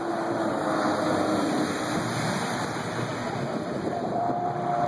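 Yamaha Exciter jet boat running at speed and carving a hard turn: a steady engine drone whose pitch shifts, over a constant rushing noise.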